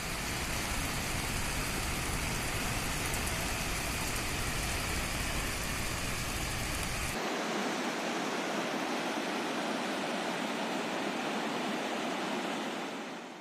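Steady rushing roar of a rain-swollen river in flood, a torrent of muddy water. About seven seconds in, the deep low rumble drops out and the rush turns thinner and higher.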